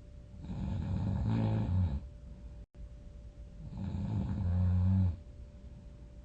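A sleeping person snoring loudly: two snores about three seconds apart, each a low rumble that swells for about a second and a half and then stops abruptly.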